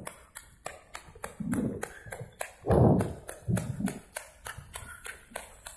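Running footsteps slapping on a wet asphalt road, a steady rhythm of about three to four steps a second, with a few low muffled rumbles around the middle.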